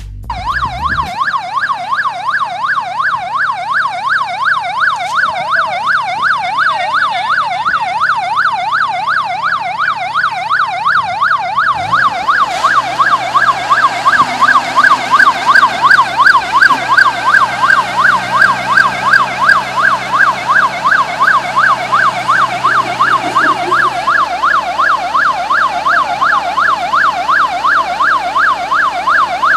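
A tracked rice combine harvester's warning siren wails, sweeping quickly up and down about three times a second without a break, growing louder as the machine comes closer. A low engine hum comes in under it about halfway through.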